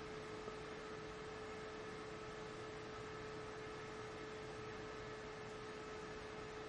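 Faint, steady electrical hum: one held tone with a background hiss.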